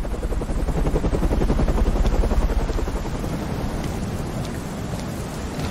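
Helicopter rotor blades chopping in a fast, steady beat. It is loudest about two seconds in and then eases off as the helicopter moves away.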